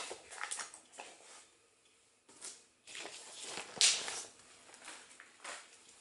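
A clunk as the turntable's steady hum stops. Then irregular rustling and light knocks of hands handling a vinyl record and its paper sleeve, with a sharp click about four seconds in.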